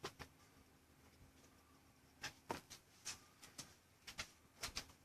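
Faint, irregular clicking of a computer keyboard and mouse: a couple of clicks at the start, then about a dozen quick ones bunched in the second half.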